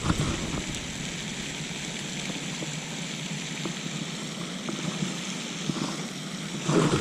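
Steady rush of water splashing from a pond's aerating fountain.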